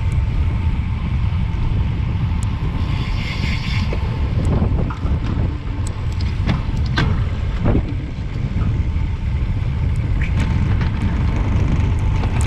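Wind buffeting the microphone of an action camera on a road bike riding at about 30 km/h: a loud, steady low rumble, with a few short sharp clicks and knocks from the bike.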